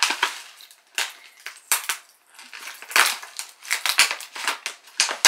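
Plastic packaging crinkling and rustling in irregular crackly bursts as it is opened by hand.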